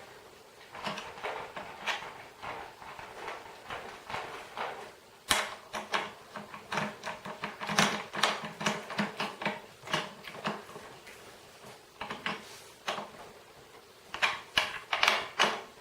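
Irregular clicks, knocks and light rattles of snare drum hardware being handled while the snare wires are fitted and screwed in. The clicks come in clusters, thickest in the middle and again near the end.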